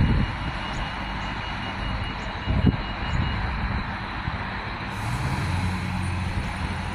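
Diesel engine of a 3000/3100 class railcar running at the platform, a steady hum. A lower, steady engine note sets in about five seconds in, and there is a single thump near the middle.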